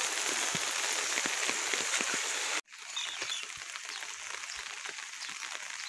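Heavy rain falling: a steady hiss with the patter of many drops. A little under halfway through it cuts out for an instant and comes back somewhat quieter.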